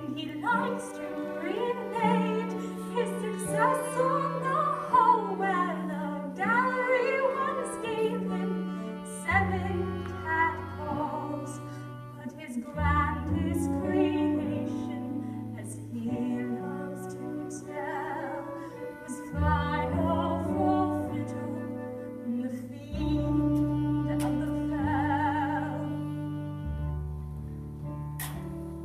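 Live pit orchestra playing a slow stage-musical number: sustained bass notes change every second or two beneath a wavering melody.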